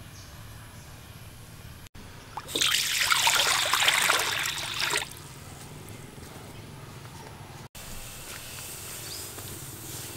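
Water splashing as it is poured into a wok for about two and a half seconds. After that comes the quieter, steady sound of the water boiling.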